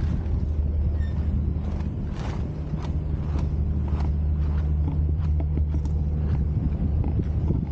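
Wind buffeting the microphone as a steady low rumble, with footsteps at a walking pace, a little under two steps a second.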